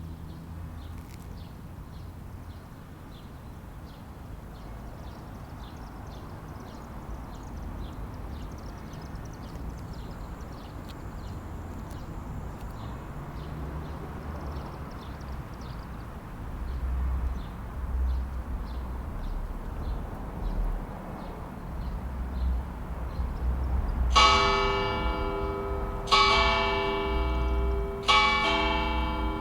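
Two large cast-bronze McShane church bells chiming, starting late after a long stretch of low rumble: strokes about two seconds apart, each one ringing on long and overlapping the next.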